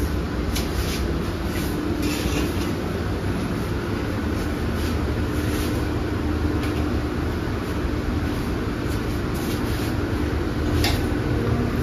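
A kitchen exhaust hood fan runs with a steady rumbling hum and a faint steady tone. A few light clicks of pots and utensils come through it.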